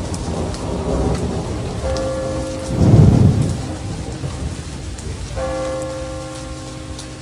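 Steady rain with a low rumble of thunder peaking about three seconds in, under a soundtrack of long held synthesizer-like chords that come in twice.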